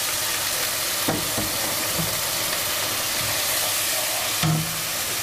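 Steady sizzle of food frying in hot oil on the stove, with a few light clinks of a spoon against the pan.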